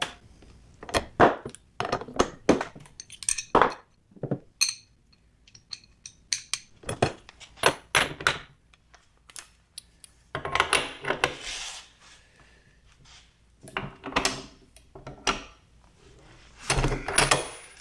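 Metal tool parts and bolts clinking and clattering as they are handled, a run of separate sharp clinks with two denser clattering stretches, about ten seconds in and near the end.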